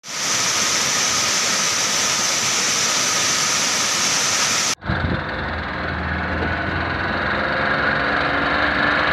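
Rushing stream water tumbling over boulders, a dense steady hiss, until an abrupt cut a little under five seconds in. After the cut comes the steady low hum of an engine running.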